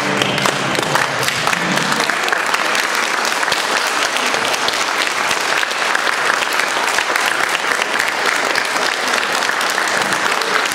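Audience applauding, a steady dense clapping. The last of the music fades out about two seconds in.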